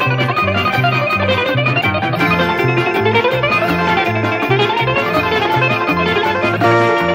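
Greek bouzouki instrumental music: a bouzouki plays quick runs of notes that climb and fall, over a steady, rhythmic bass accompaniment.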